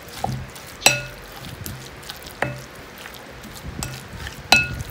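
Wooden spatula stirring a tuna mixture in a glass mixing bowl, knocking against the bowl. Three louder clinks, about a second and a half to two seconds apart, each leave the glass ringing briefly, with softer taps and scraping between them.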